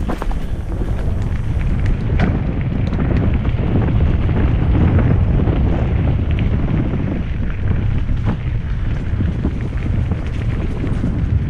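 Wind rushing over a helmet-mounted camera microphone as a mountain bike runs down a dirt trail, with a steady low rumble and a few sharp clacks from the bike jolting over bumps.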